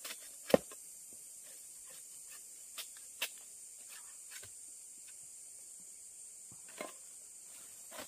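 Machete blade chopping into a slab of soft, fibrous trunk. One sharp strike about half a second in is the loudest, followed by a few lighter chops spread through the rest. A steady high insect drone runs underneath.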